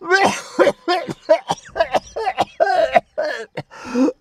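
A man coughing and clearing his throat, broken up with short bits of speech.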